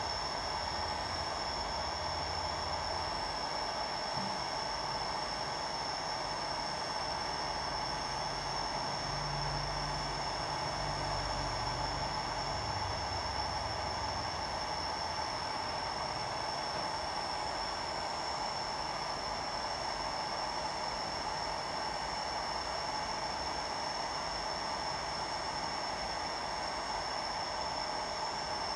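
Hot air rework station blowing steadily: an even hiss of air with a fan whir and a thin high whine, heating the motherboard to desolder a capacitor.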